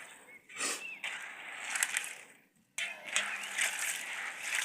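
Dry beans being washed by hand in water: irregular sloshing with clicks and scrapes, dropping out briefly about two and a half seconds in.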